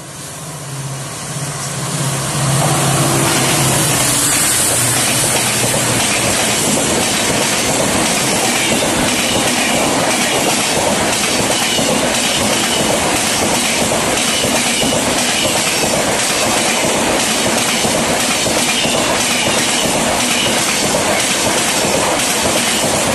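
Express passenger train led by a WDP-4D diesel locomotive passing at speed. The sound swells over the first few seconds as it arrives, then holds as a steady rush of LHB coach wheels on the rails with rapid clickety-clack over the rail joints.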